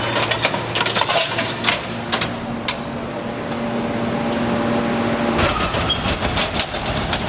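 Hydraulic scrap-metal shear baler working scrap: a steady hydraulic hum under scattered sharp cracks and clanks of metal being pressed. The hum stops about five and a half seconds in.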